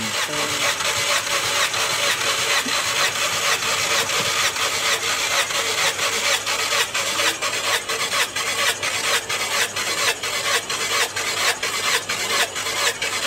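Skoda Superb petrol engine cranked over steadily on its starter motor, with an even, rhythmic pulse, during a dry compression test with a gauge in one spark plug hole.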